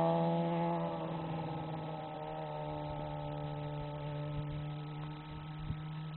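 Suzuki GSX-R1000 inline-four sport bike engine pulling away at steady revs, its note fading gradually as the bike moves off into the distance.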